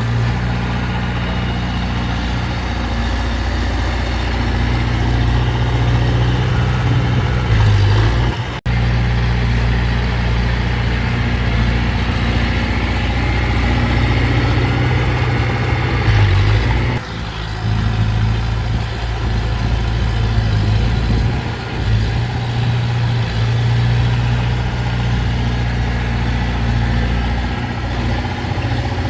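Heavy diesel engine of earthmoving machinery running steadily at a low pitch, with small shifts in speed as it works. The sound drops out for an instant about eight seconds in.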